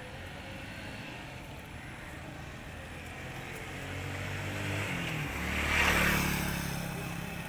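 A motor vehicle passing close by: its engine grows louder, is loudest about six seconds in, and drops in pitch as it goes past, then fades.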